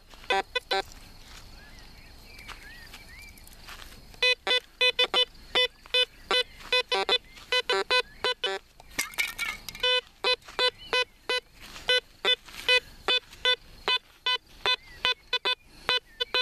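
Pirate Black Devil 2 PRO metal detector beeping as its coil is swept quickly back and forth over nearby metal targets, giving a separate short tone for each target: a test of how fast it recovers between signals. After the first second the beeping stops for about three seconds. It starts again about four seconds in, at up to about four beeps a second.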